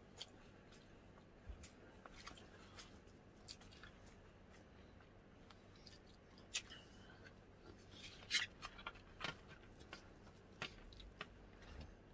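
Faint eating sounds: scattered small crunches and clicks from chewing and handling food, the sharpest a little past the middle.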